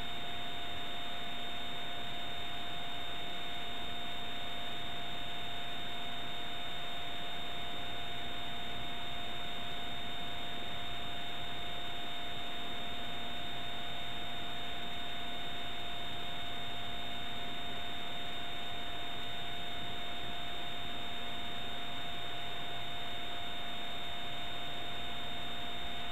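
Steady electronic hiss with a few faint steady tones in it, unchanging throughout: line noise from a blank, signal-less stretch of a video-tape transfer.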